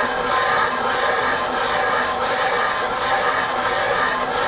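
A metal lathe headstock casting being rubbed back and forth by hand over coarse 40-grit sandpaper on a flat glass plate: a steady, loud scraping grind as its base is sanded flat.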